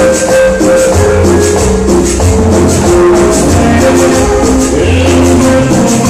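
Loud recorded dance music through a sonidero DJ's sound system: a steady bass line and melody under a quick, even shaker rhythm.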